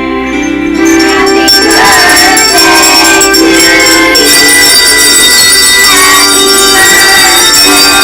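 Handbell choir ringing a song: many bells sounding together in held, ringing chords that change every second or so. The music gets louder about a second in.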